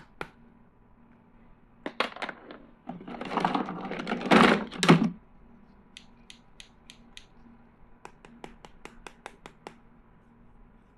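Plastic toy tools and packaging being handled: quick runs of light plastic clicks and taps, with a louder scraping rustle lasting about two seconds in the middle.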